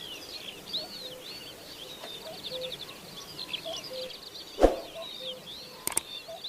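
Kerak basi (reed warbler) singing a fast, unbroken chattering song of rapid high notes. A short low note repeats about once a second beneath it. A single sharp knock about two-thirds of the way in is the loudest sound, and two faint clicks come near the end.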